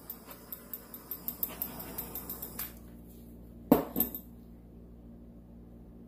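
A quick run of light clicks and clinks for about two and a half seconds, then two sharp knocks close together as a handheld tool is set down on the work table. A faint steady hum follows.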